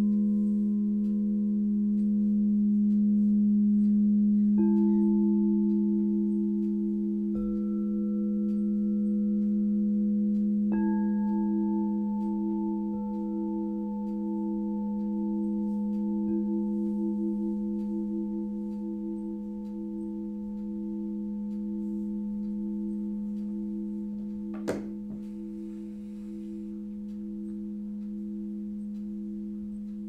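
Crystal singing bowls tuned to G#, E and B ringing together: a deep steady hum with higher tones above it, and a slow wavering beat in one of them. More bowls are struck about 5, 7 and 11 seconds in, each adding a higher ringing tone, and the whole sound slowly fades. There is a single sharp knock about 25 seconds in.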